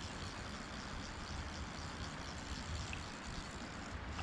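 Steady rush of flowing river water, an even wash of noise with no breaks.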